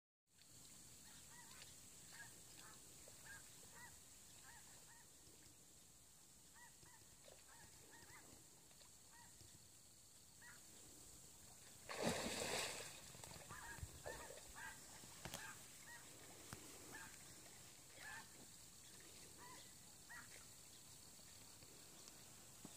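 Faint honking of geese: many short calls scattered throughout. About halfway through comes a louder rush of noise lasting about a second.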